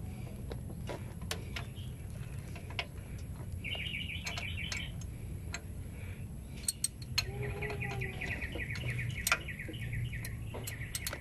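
3/8-inch drive ratchet clicking as it is worked back and forth to loosen the gearbox filler bolt: a short run of rapid clicks about four seconds in and a longer run from about seven to ten seconds, with a few single metallic clicks between them.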